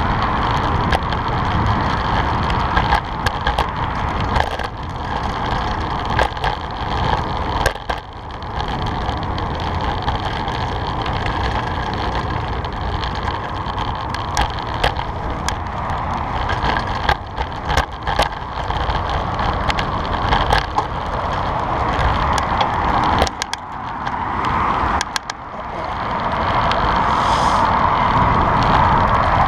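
Fixed-gear bicycle rolling over pavement, with a steady rolling noise and frequent sharp clicks and rattles from the bike. The noise drops briefly about three-quarters through, then picks up again.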